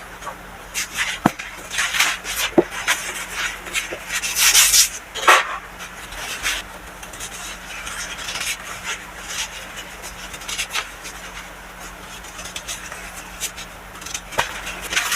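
Compressed baking soda crushed by hand: irregular soft crunches and rasps with a few sharp clicks, busiest in the first few seconds and sparser after.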